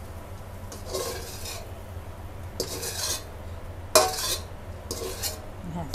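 Metal spatula scraping and knocking against an aluminium wok as the last of the stir-fried pork is scooped out: a few separate scrapes, with a sharper clank about four seconds in, over a steady low hum.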